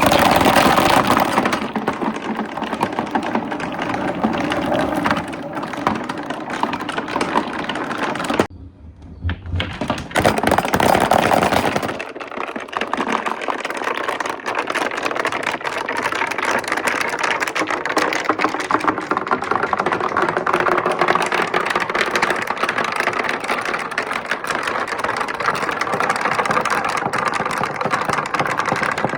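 Marbles rolling and clattering down a wooden marble run with right-angle turns, a dense rattle of rapid clicks. The rattle drops away briefly about nine seconds in, then picks up again.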